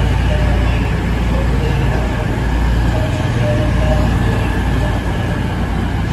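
EMR Intercity diesel multiple unit moving through the station, its diesel engines giving a steady low drone.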